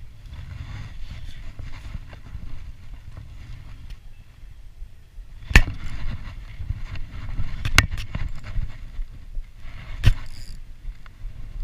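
Rumbling handling noise from a body-worn camera rubbing against clothing while a spinning rod and reel are worked, broken by sharp knocks about halfway through, a close pair near eight seconds and another near ten seconds.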